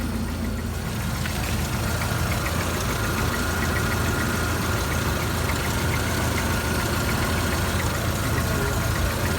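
Jeep TJ engine idling steadily on a freshly replaced timing chain and tensioner, with a faint regular ticking a few times a second and a thin steady whine that comes in about a second in.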